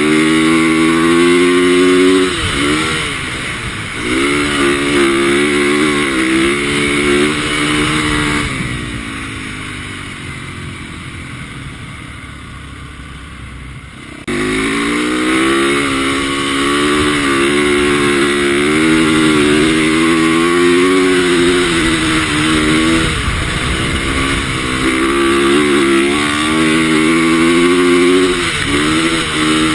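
450cc four-stroke single-cylinder dirt bike engine revving hard, its pitch climbing and dropping as the rider works the throttle and gears. About eight seconds in the throttle shuts and the engine note sinks and fades for several seconds. Then it comes back suddenly at full revs and keeps rising and falling.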